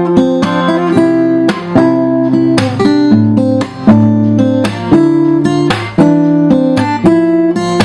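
Acoustic guitar being played: chords strummed and notes picked in a steady sequence, each chord ringing on until the next one starts.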